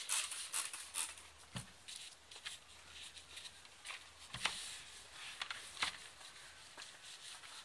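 Cloth rustling as it is handled on a work surface, with scattered light clicks and taps; the loudest rustles come in the first second and about four and a half seconds in.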